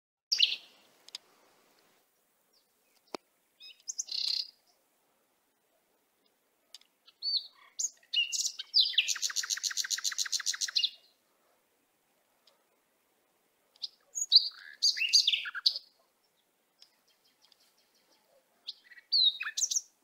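Small birds chirping and calling in short, high bursts, with a fast trill of about ten notes a second lasting about two seconds near the middle.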